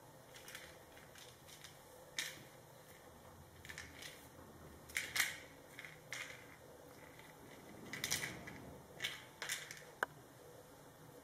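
A kitten's paws and claws scuffing and scratching on a tiled floor as it bats a toy mouse about: irregular short scrapes, with a few louder clusters and one sharp click near the end.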